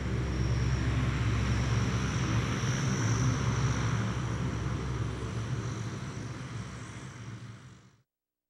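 Propeller aircraft engines droning steadily as warplanes fly over, a deep hum with a hiss above it. It fades over the last few seconds and cuts off suddenly about eight seconds in.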